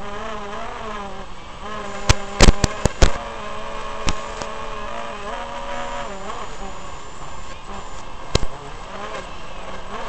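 X220S racing quadcopter's motors and propellers buzzing steadily, the pitch rising and dipping as the throttle changes. A quick run of about five sharp cracks comes a couple of seconds in, with another single crack later.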